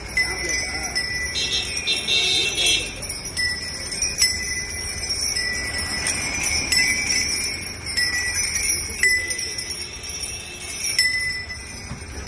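Bell on a walking temple elephant, ringing again and again, about once a second, as the elephant passes.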